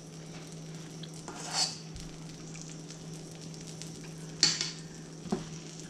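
Metal spoon scraping and clinking against a stainless steel mixing bowl as whipped cream is scooped out: a brief scrape about a second and a half in, a sharper clink about four and a half seconds in and a small tap just after. A steady low hum runs underneath.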